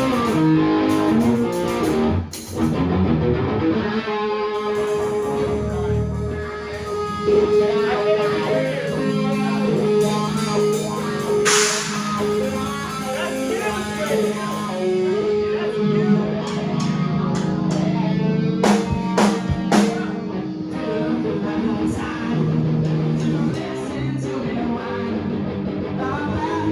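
Band rehearsal music led by guitar, playing held notes and chords. A brief burst of noise comes about halfway through, and a few sharp hits come about three-quarters of the way in.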